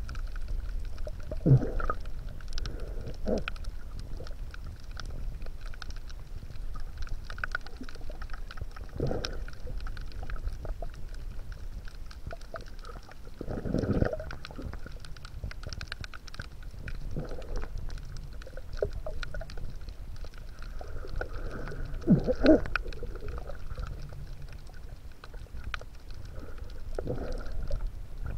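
Muffled underwater sound picked up by a camera in a waterproof housing: a steady low rumble of moving water with a faint crackle, broken by about six brief swishing surges, the loudest about three-quarters of the way through.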